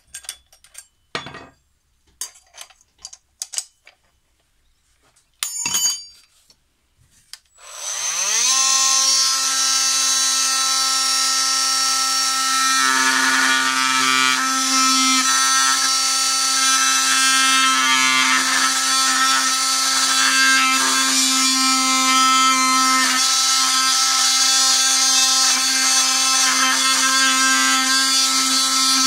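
A few handling clicks and knocks, then a cordless oscillating multi-tool starts about eight seconds in. It spins up to a steady high buzz and keeps running, with brief changes in tone as the load on the blade shifts. It is running on a nearly flat battery.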